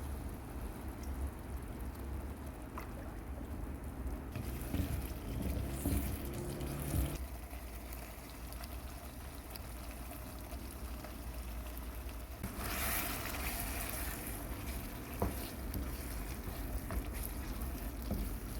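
Water running and trickling, with a louder rush about thirteen seconds in.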